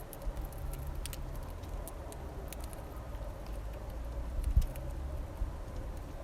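Scattered light clicks and taps of finches pecking and cracking seed at a bird feeder, over a low steady rumble.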